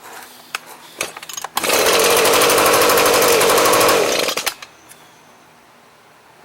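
Echo ES250 shredder vac's two-stroke engine firing up and running at a steady speed for about three seconds, then cutting out. A few clicks and rattles come before it starts.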